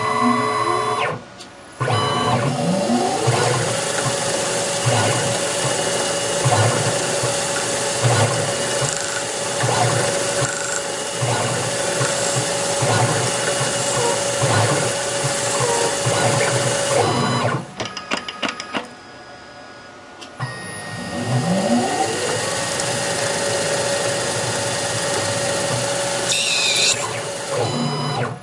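Small CNC lathe running its program. The spindle motor spins up with a rising whine and runs steadily while the tool cuts plastic bar stock, then stops about two-thirds through. There are brief whirring moves of the axis motors, and the spindle spins up again for the next operation.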